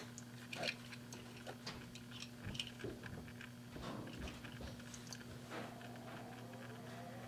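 Faint, irregular clicks and light taps from small die-cast toy cars being handled, over a steady low hum.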